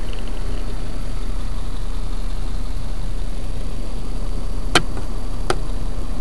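Steady car engine and road rumble heard from inside a moving car, with two sharp clicks a little under a second apart near the end.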